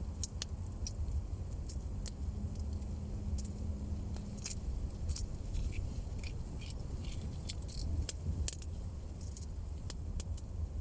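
Small campfire crackling, with irregular sharp snaps, over a steady low rumble.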